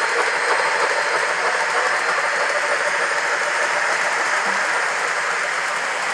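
MTH O-gauge model steam locomotive and freight cars running along the track: a steady rolling rumble and rattle of wheels on rail.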